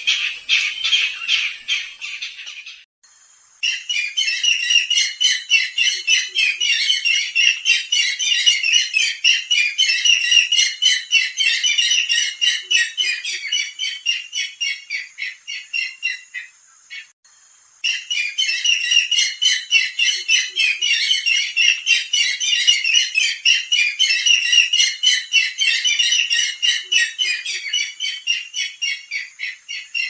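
Barred rail (sintar zebra) calling: long runs of rapid, harsh notes, about four a second. One run slows toward its end about 16 seconds in, and after a short pause and a single note a new run begins.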